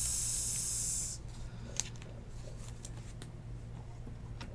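A steady high hiss cuts off suddenly about a second in. It is followed by faint clicks and plastic rustles of a trading card being slid into a soft plastic sleeve and handled.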